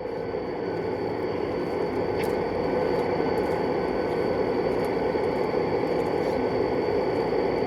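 Steady running noise of a G scale model train, growing a little louder over the first two seconds, with a faint high whine throughout.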